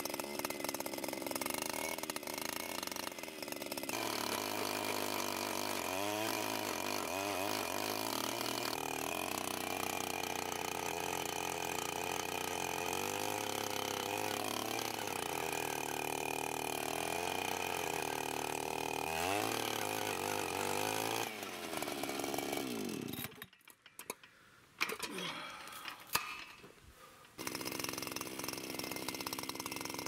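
Handheld petrol post-hole auger boring into dry soil, its small engine running under load with the pitch rising and falling as it digs. About three-quarters of the way through the engine winds down and goes nearly quiet for a few seconds with a couple of knocks, then runs again.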